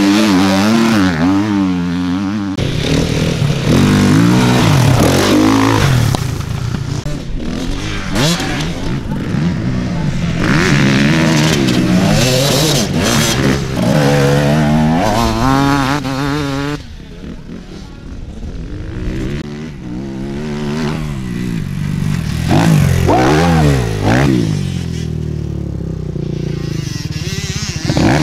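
Enduro dirt-bike engines revving hard as riders accelerate past one after another, the engine note climbing and dropping with each throttle blip and gear change. The bikes are quieter for a few seconds past the middle.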